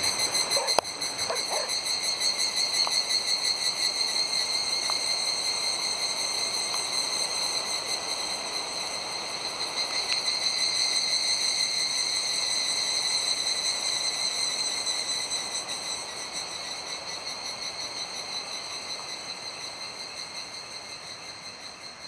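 A chorus of cicadas: a steady, high, pulsing buzz that swells about ten seconds in and fades gradually near the end.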